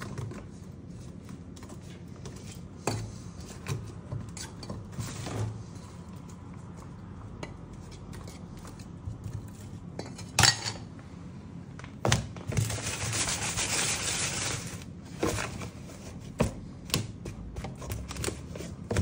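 A metal spoon clinking and scraping against a stainless steel bowl of beaten egg as a pork cutlet is turned and coated, in scattered sharp clicks. Partway through comes about two seconds of rustling, the loudest part.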